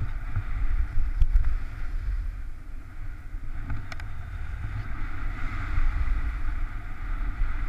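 Skis sliding over snow on a downhill run, with steady wind rumble on the action camera's microphone.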